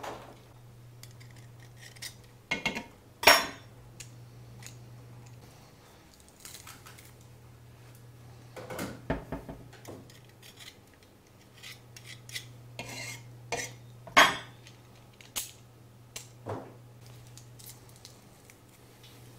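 Metal garlic press clicking and clacking as garlic cloves are loaded and crushed: a scattering of sharp clicks and knocks a few seconds apart, over a faint low steady hum.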